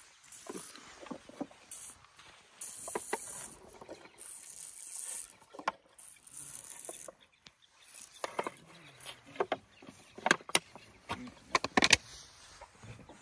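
Young African elephant drinking milk from a plastic bottle held up in its trunk, with three stretches of hissing slurps. In the last few seconds come a run of sharp clicks and knocks, the loudest near the end, as the bottle is handled and set down.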